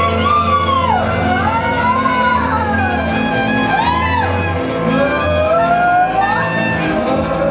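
Live band music: a lead line slides and wavers up and down over a steady low bass drone, with trumpet heard in the mix.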